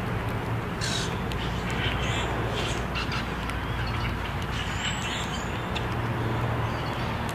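Grackles giving short, scattered high calls while feeding on spilled birdseed, over a steady low rumble.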